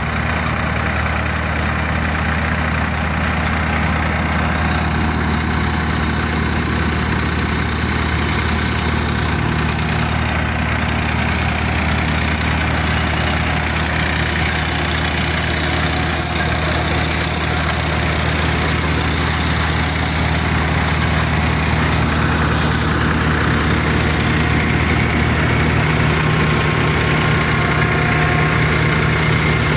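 Tractor engine running steadily at a low, even speed, heard up close.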